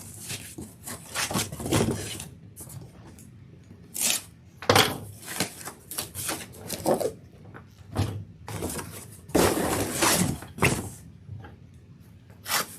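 A cardboard shipping box of vinyl records being opened and handled by hand: a run of rustles, scrapes and knocks of cardboard, with a longer rasping, tearing noise about nine to ten seconds in.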